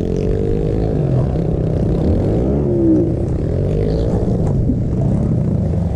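Small pit bike engine running and revving as the bike is ridden, its pitch rising and falling with the throttle, dipping and climbing again about two to three seconds in.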